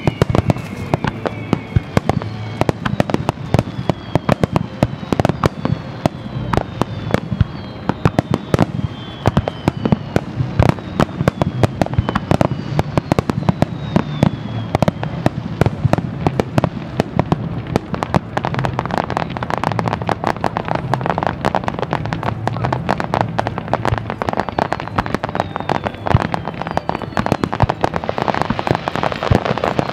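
Daytime fireworks finale: a rapid barrage of shell bursts and bangs, several a second, with falling whistles through the first half. About two-thirds of the way in, a denser crackle of sparkling bursts joins the bangs.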